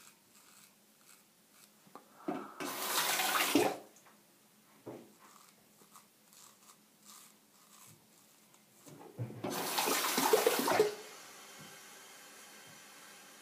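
Shavette straight razor scraping through beard hair in short, faint rasping strokes. Twice a louder rushing noise lasts about a second, and after the second one a faint steady hiss remains.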